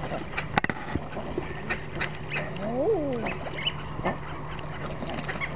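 Drake common eider giving its crooning 'ah-ooo' coo once, a call that rises and falls, about three seconds in; this is the cooing that drakes use in courtship. Short high chirps come and go around it, and there is a sharp click in the first second.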